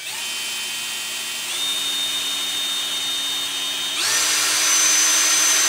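Ferrex Pro 40V brushless cordless combi drill running, its motor whine stepping up in pitch and getting louder twice, about a second and a half in and again about four seconds in.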